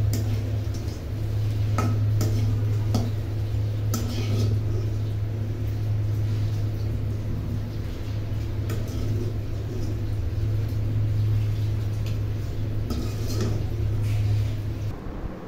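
Metal slotted spoon scraping and knocking against a black karahi while stirring and lifting out dried red chillies fried in oil, with a few scattered clinks. A steady low hum runs beneath and stops just before the end.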